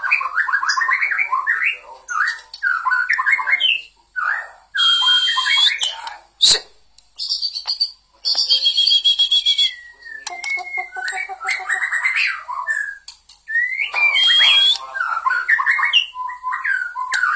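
White-rumped shama singing: a varied run of loud whistled phrases and rapid trills, broken by short pauses. A single sharp click comes about six and a half seconds in.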